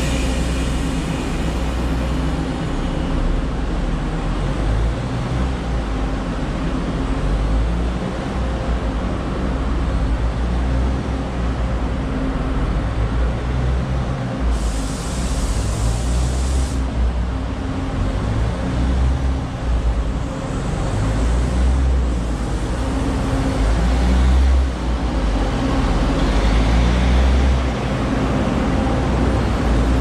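Taiwan Railway DR1000-series diesel multiple unit's engines running with a steady low hum, with a short hiss of air about halfway through. Near the end the train rolls past close by.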